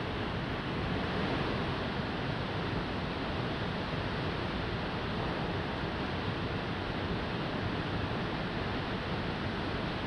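Niagara Falls: a steady, unbroken rush of water pouring over the falls and crashing into the gorge below.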